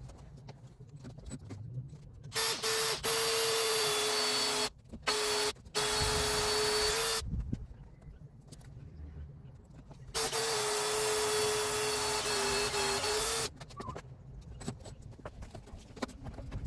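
An electric power tool running in two long runs, the first about five seconds with two brief stops and the second about three seconds, with a steady motor whine that sags slightly toward the end of each run. Quieter knocks and clatter come in between.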